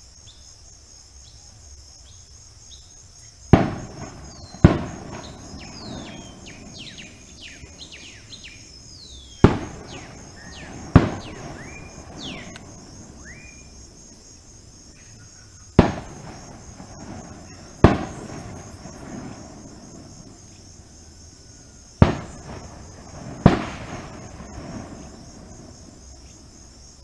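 Steady high-pitched chorus of insects, broken by eight loud sharp bangs that come in pairs one to two seconds apart, each with a short echo. After the first bangs, birds give short falling whistled calls.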